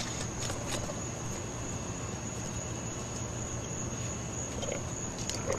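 Insects trilling steadily at one high pitch over a low hum, with a few faint clicks.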